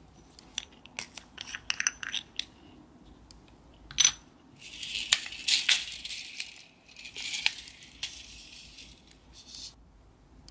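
A run of small sharp clicks and taps, then a louder click about four seconds in. Tiny metal nail-art ball beads then rattle inside a clear plastic compartment case in two spells of a second or two each.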